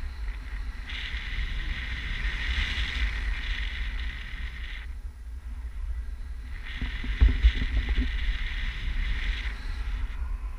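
Wind buffeting a handheld camera's microphone in tandem paraglider flight: a steady low rumble with a rushing hiss that swells twice, and a couple of thumps a little past the middle.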